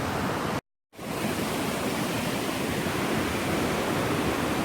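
Steady rush of a waterfall and cascading stream. It cuts out to silence for a moment just under a second in.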